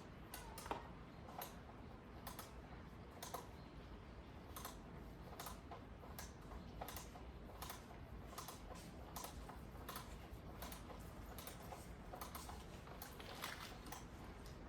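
Scattered light clicks and taps, irregular, about one or two a second, of hand tools and small metal parts being handled.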